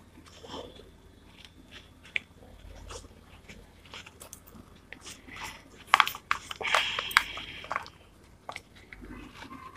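Crinkling and rustling of a paper-wrapped gift box and satin ribbon under the fingers as a bow is tied and pulled tight, with scattered small clicks and a louder burst of crackling about six seconds in.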